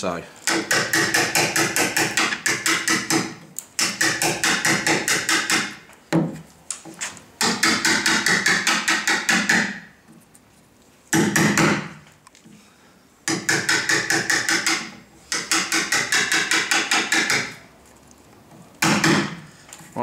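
A hammer tapping a steel wood chisel in quick runs of light blows, chopping out a shallow rebate about 3 mm deep in a timber door frame for a lock's strike plate. The runs last one to three seconds each, with short pauses between them.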